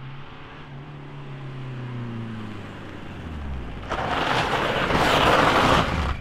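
Renault Clio's engine revving as the car approaches, its pitch rising and then easing off, then turning loud and rough from about four seconds in as it accelerates past close by.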